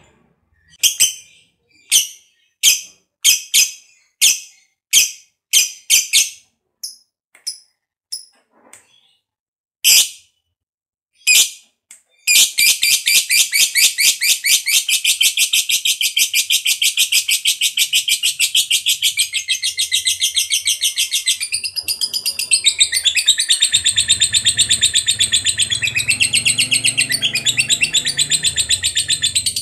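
Lovebird calling: sharp, separate chirps about every half second to a second, then, about twelve seconds in, a long, rapid, unbroken chattering trill, the 'ngekek panjang' that lovebird keepers prize.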